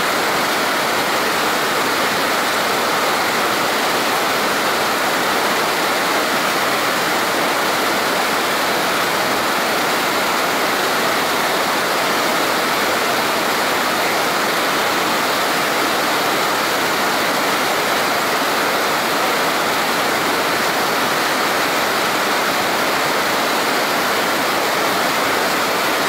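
The Devil's Throat, the biggest cataract of Iguazu Falls, pours down into its gorge with a loud, steady, unbroken rush of falling water.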